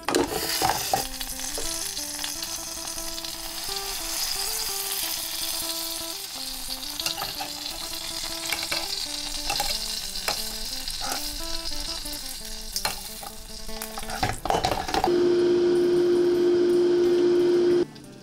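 Pork neck sizzling in a hot air fryer basket, with metal tongs clicking as the pieces are turned. Near the end the sizzle gives way to a loud steady hum lasting a few seconds, the air fryer's fan running with the basket closed, which cuts off suddenly.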